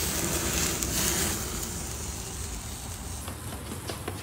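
Tomahawk steak sizzling on a wire grill grate over a flaming charcoal fire, with a steady hiss of rain. A few sharp clicks come near the end.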